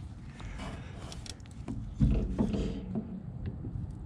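Hands working a plastic ignition-coil wiring connector: small clicks and rattles as its locking tabs are handled, with a louder bump about two seconds in.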